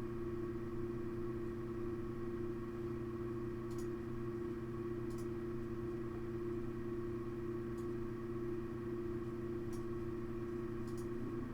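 Asus Radeon HD 7950 DirectCU II TOP V2 graphics card fans running at a steady low speed, heard through the closed PC case. It is a steady hum with a clear pitched tone over soft air noise: the kind of tone that makes this card annoying at certain fan speeds.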